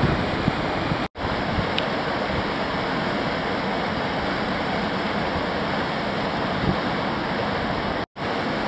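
Whitewater rushing steadily through a standing river wave. The sound cuts out for an instant twice, about a second in and near the end.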